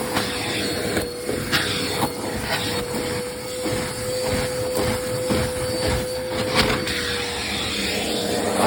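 Vacuum cleaner running steadily with a constant whine, cleaning carpeted stairs, with frequent crackles and clicks as dirt and grit are sucked up.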